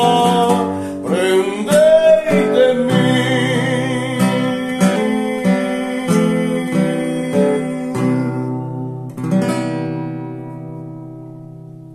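Acoustic guitar playing the closing bars of a hymn. A voice holds a last sung note over the first couple of seconds, then plucked chords follow, and a final strummed chord about nine seconds in rings out and fades.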